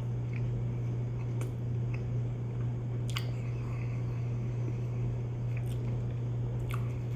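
A person chewing spicy cheese: faint scattered mouth clicks and smacks over a steady low hum.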